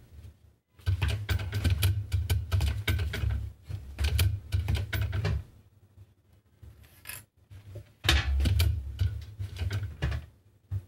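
Juki DDL-555 industrial straight-stitch sewing machine stitching webbing strap in two runs, the needle clattering rapidly over a low motor hum: one run from about a second in to about five seconds, a pause, then a shorter run near the end.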